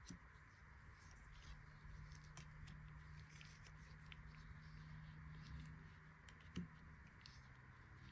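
Near silence with faint, scattered light clicks and rustles of trading cards and packaging being handled, over a steady low hum.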